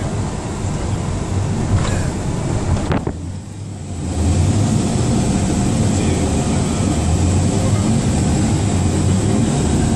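Steady road and engine noise of a moving car, heard from inside the cabin. About three seconds in it drops off briefly, then comes back louder and keeps going steadily.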